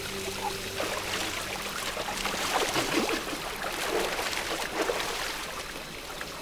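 Water in a shallow jungle stream trickling and splashing, with irregular splashes coming thickest through the middle.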